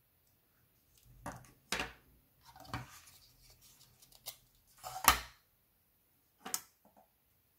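A series of separate plastic clicks and knocks from an 80 mm plastic cooling fan being handled, its screw fittings worked into its corners and the fan set down on a desk; the sharpest knock comes about five seconds in.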